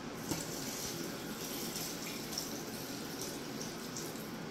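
Vegetable broth pouring from a measuring jug into a pot of fried onions and pumpkin, a steady stream of liquid splashing in.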